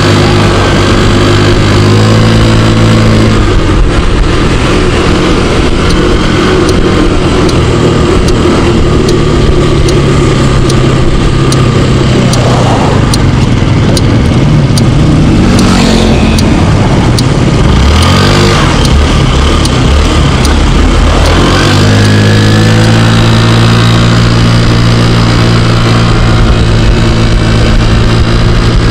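Scooter engine running under way, a steady hum that gives way in the middle to a noisier stretch with rising and falling pitch as the scooter speeds up and slows down. Its clogged air cleaner has just been replaced, and it now runs smoothly and accelerates well.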